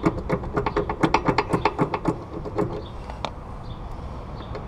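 Stock metal footpeg rattling and clicking against its mount as it is worked loose by hand: a quick run of ringing metallic clicks for about two and a half seconds, then a few single clicks.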